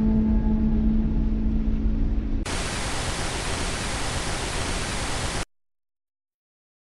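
The tail of dark soundtrack music, a low rumble with a held low note, fades out; about two and a half seconds in, a loud TV-static hiss cuts in abruptly, runs for about three seconds and cuts off to silence.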